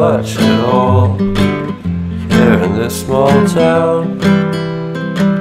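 Background music: a song carried by strummed acoustic guitar.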